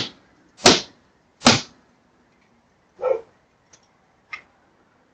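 Three loud blows on a car windshield in quick succession, under a second apart, followed by a few quieter knocks.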